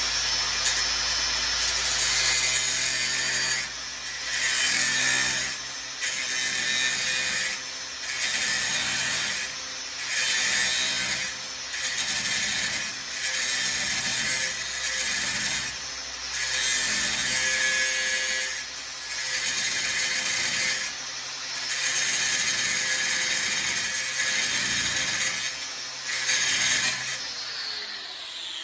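Power cutting tool cutting through steel tack welds on a frame crossmember, with short breaks every second or two as it is repositioned. Near the end the tool is let off and spins down with falling pitch.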